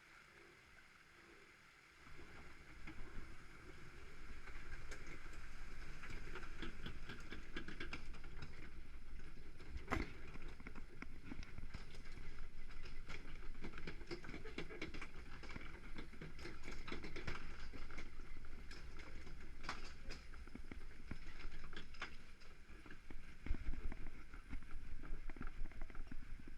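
Log flume boat heard from on board, starting about two seconds in: a steady rush of water and the rumble of the boat moving along the channel, with scattered knocks and one sharp knock near the middle.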